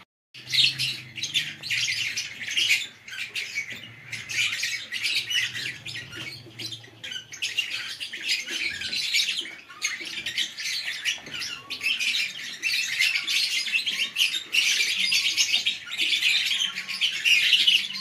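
Many caged lovebirds chattering: a dense, continuous stream of high-pitched chirps and squeaks.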